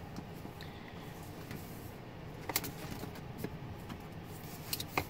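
Paper pages of a three-ring binder being turned by hand: faint rustling with a few sharp clicks, a pair about halfway through and more near the end.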